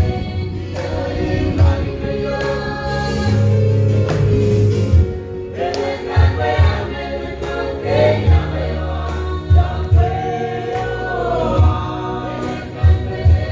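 Mixed choir of men and women singing a Marshallese hymn together in parts, over a steady low bass line with a thumping beat every second or so.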